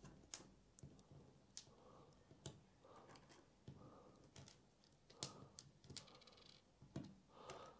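Near silence with about a dozen faint, scattered light clicks of small metal hardware (nuts, shims and wheel parts) being handled and picked up off the mat.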